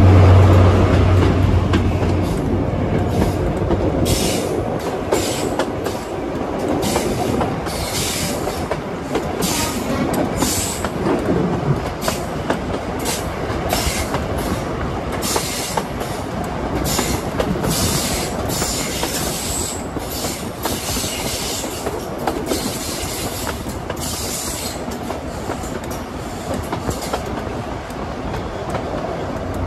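Class 43 High Speed Train with Mark 3 coaches running along the line, heard from an open window just behind the power car. A loud low drone marks the first two seconds as it passes under a bridge, and steady rolling noise follows.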